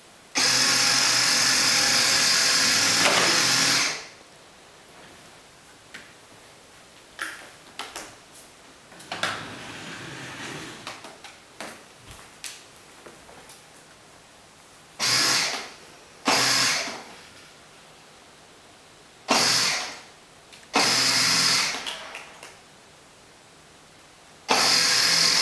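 Battery-powered ride-on toy quad's electric drive motor and gearbox whirring in bursts as it drives and stops: one long run of a few seconds at the start, then five shorter runs of about a second each in the second half. Small knocks and clicks come between the runs.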